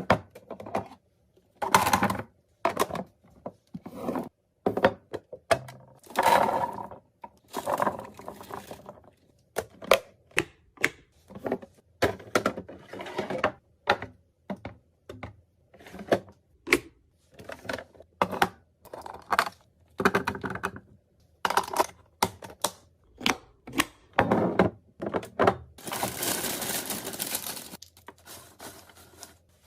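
Irregular knocks, clicks and clatter of containers and food items being handled and set down while a fridge is restocked, with a steadier noise of about two seconds near the end.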